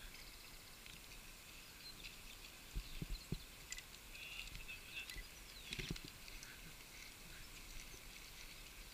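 Faint bird calls and short chirps over quiet outdoor background noise, with a few soft low thumps about three seconds in and again near six seconds.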